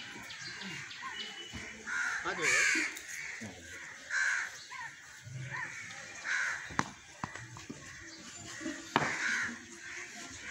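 Repeated bird calls, about one a second, with two sharp knocks in the later part, the second louder than the first.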